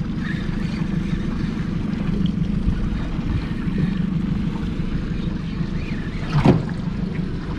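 Yamaha outboard motor running steadily at trolling speed, a low hum with water and wind noise over it. A brief sharp sound, rising in pitch, cuts in about six and a half seconds in.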